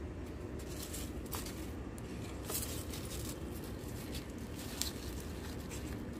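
Fingers pressing potting soil around a bok choy seedling in a thin clear plastic tray, giving soft rustles of leaves and soil and a few short crackles of the plastic, over a steady low rumble.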